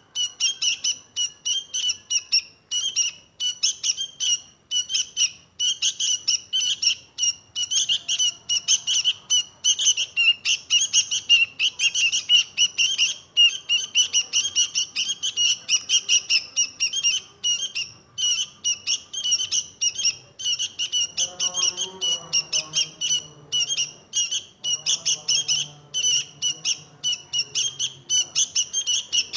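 Sooty-headed bulbul (kutilang) singing a continuous run of quick, rapidly repeated chirping notes. A faint low-pitched sound comes in underneath in the second half.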